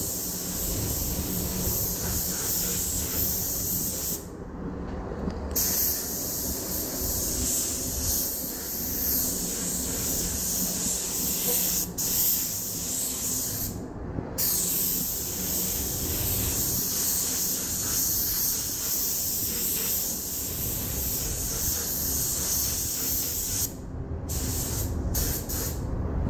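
Compressed-air paint spray gun hissing in long passes, cutting out briefly about four seconds in, again around fourteen seconds, and several times near the end as the trigger is let go. A steady low rumble from the spray booth's air extraction runs underneath.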